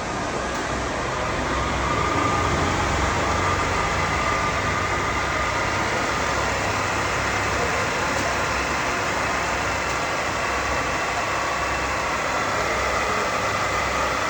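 Sachman heavy-duty vertical milling and boring machine running steadily: a constant mechanical hum with a faint high whine.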